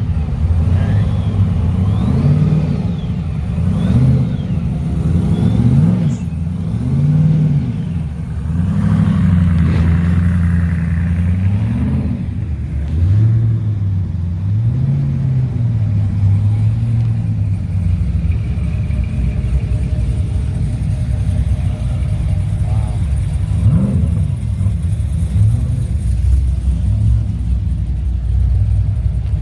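Car engine revving up and down again and again through the first half, each blip rising and falling in pitch, then settling into a steadier low rumble in the second half.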